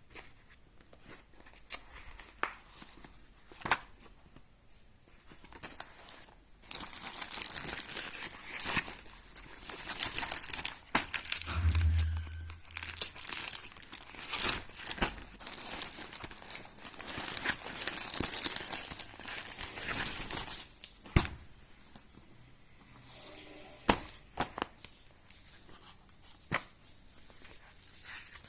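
A book's packaging being torn open and crinkled by hand. A dense stretch of crinkling and tearing runs from about seven seconds in to about twenty-one seconds in, with scattered handling taps and clicks before and after.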